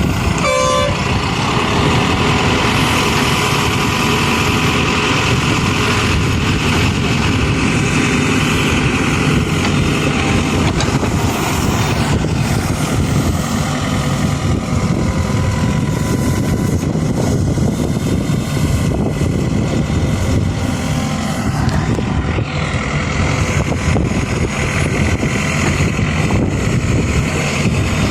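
Mahindra SX 74 HP backhoe loader's diesel engine running steadily as the machine works. A short horn toot sounds about half a second in.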